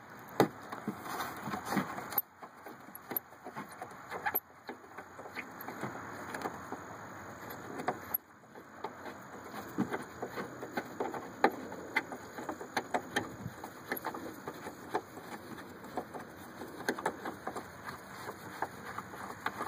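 Scattered small clicks and light rattles of hand work on the car's taillight mounting: screws being unscrewed and plastic parts handled.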